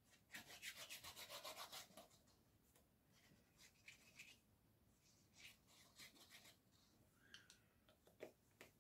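Faint rubbing on paper: a quick run of rapid strokes, about eight a second, for under two seconds, then a few scattered short scrapes and a small knock near the end.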